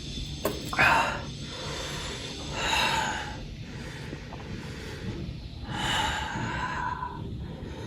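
A person breathing hard in three loud, noisy breaths a couple of seconds apart, the last the longest, a reaction to the burn of very spicy noodles.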